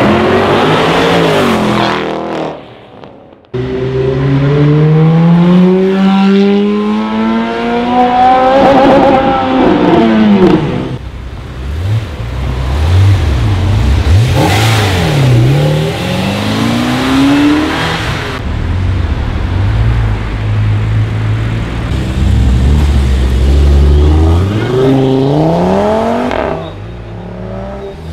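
Sports-car engines accelerating hard, one clip after another with abrupt cuts, revs rising repeatedly through the gears. In the middle a Ferrari 348's V8 rumbles low, then revs up.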